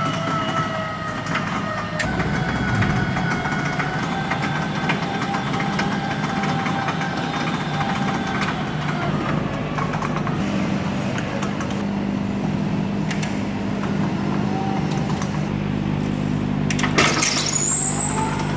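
Electric walk-behind pallet stacker moving a heavy load: its motor whines in several steady tones over a low hum. Near the end comes a short loud hiss with a rising whine.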